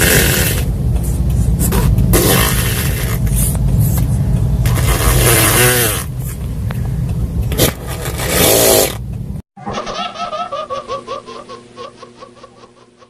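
Vespa scooter exhaust revving loudly in surges over a heavy low rumble, cut off abruptly about nine seconds in. After the cut comes a fast, fading run of falling cackling notes.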